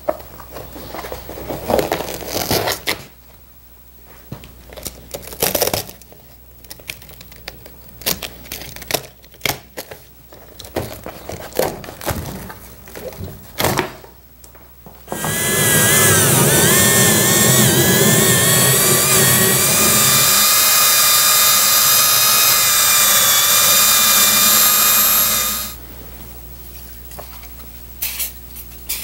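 Scraping and rustling of old, crumbling foam padding being pulled off a metal seat pan and wire springs. About fifteen seconds in, an electric tool motor runs loudly and steadily for about ten seconds, its whine dipping briefly near the start, then stops.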